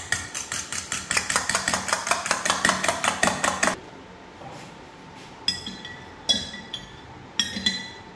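A fork whisking egg mixture against a stainless steel bowl, rapid clicking for about four seconds as it froths. Then four ringing clinks of a metal spoon against a glass jug.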